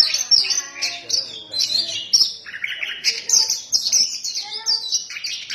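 Oriental magpie-robin (kacer) singing continuously, an unbroken run of quick varied whistles, trills and chirps in full song.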